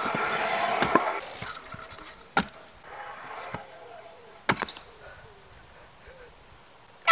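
Stunt scooter wheels rolling on concrete, with sharp clacks of the scooter landing or striking the concrete about one, two and a half and four and a half seconds in. The rolling fades away in the last couple of seconds.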